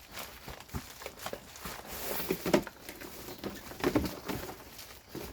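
Loose chainsaw parts and box packaging being handled: irregular clicks, knocks and rustling, loudest about two and a half and four seconds in.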